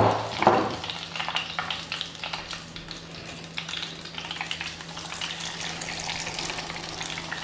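Breaded chicken deep-frying in a pot of hot rapeseed oil: a steady crackling sizzle of bubbling oil.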